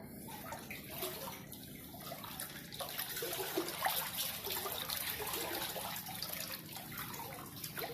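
Floodwater running and trickling.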